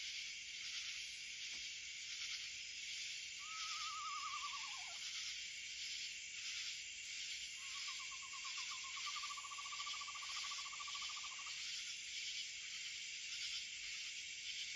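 A steady night insect chorus, with an owl calling over it: a quavering call that falls in pitch about three seconds in, then a long, level, quavering trill a few seconds later.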